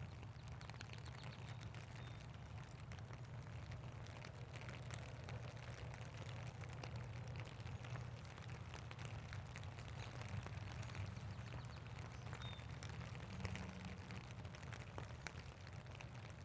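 Steady rain falling, with many scattered drops ticking, over a faint low steady rumble.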